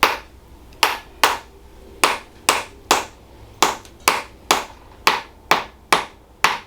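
A steady run of sharp, quick taps on a patient's body, about two a second, struck by a chiropractor as part of an adjustment.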